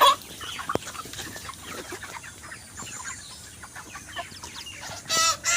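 A shed full of broiler chickens clucking and peeping, with a loud squawk near the end.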